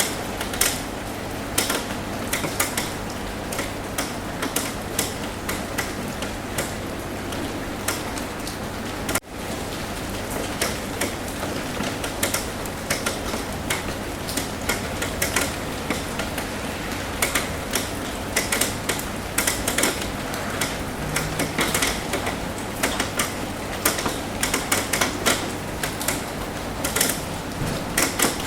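Rain on a roof: a steady hiss with many irregular drops tapping sharply on the roof surface, under a faint steady low hum. The sound drops out for a moment about nine seconds in.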